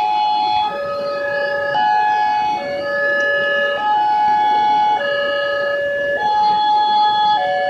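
Two Wantech electronic railway level-crossing warning sirens sounding together, each stepping between steady tones held about a second apart, so two pitches often sound at once and clash.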